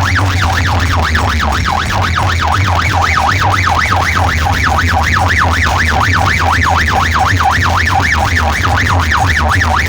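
A fast siren-like warble, rising and falling about three to four times a second, played loud through a DJ sound-box system over a steady deep bass hum.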